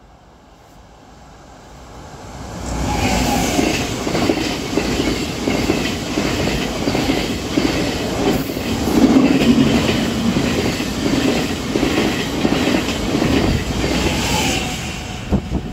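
Venice Simplon-Orient-Express passenger train, hauled by two FS E402 electric locomotives, passing close at speed. The sound builds from about two seconds in to a loud, rhythmic clatter of the wheels over the rails. A brief whine drops in pitch as the leading and then the trailing locomotive go by, and the clatter falls away near the end.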